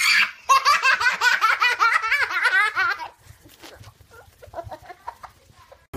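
A child laughing: a quick run of high-pitched giggles lasting about two and a half seconds, then fainter, scattered laughs.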